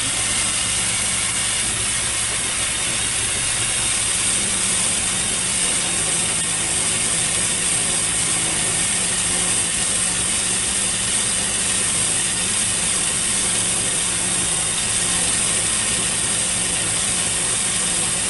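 Steady hiss of a glassworking torch flame over the even hum of a SincTech ADV-2A glass lathe's drive as it turns the glass tubes at a slowed speed.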